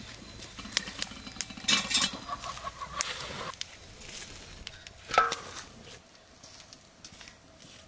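Chickens clucking in short calls, loudest about five seconds in, among scattered light clicks and knocks.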